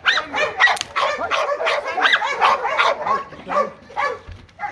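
Belgian Malinois barking and yelping in a rapid run of about three high, sharp barks a second, which space out toward the end, typical of a high-drive dog worked up for bite work.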